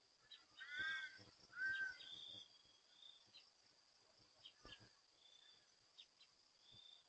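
Insects chirring steadily in a high continuous band, with short repeated high chirps. About a second in come two short, arched, pitched calls, the loudest sounds here, followed by a few faint clicks.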